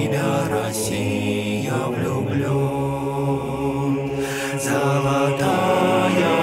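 Male voices singing a slow, drawn-out melody in harmony, with long held notes and no clear words.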